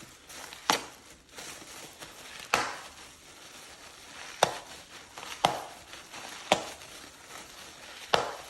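Bubble wrap being popped by hand: six sharp, separate pops a second or two apart, some followed by a brief crinkle of the plastic.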